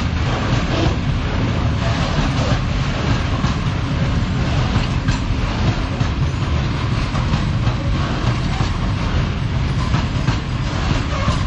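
Freight train wagons rolling past on the track: a steady loud rumble with wheels clicking over the rail joints.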